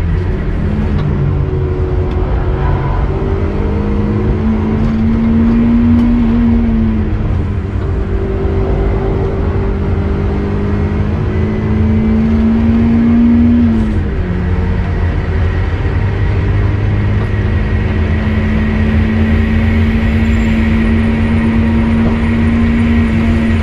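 Turbocharged Mazda MX-5's four-cylinder engine pulling hard at high revs on a fast lap. Its pitch climbs slowly and drops sharply twice, about seven and fourteen seconds in, as it shifts up, then holds high and steady. A heavy low rumble runs underneath.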